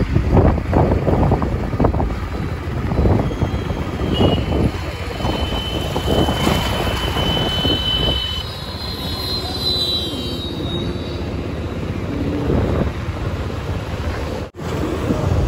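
A moving vehicle's steady low rumble, with thin high whistle-like tones for a few seconds from about four seconds in.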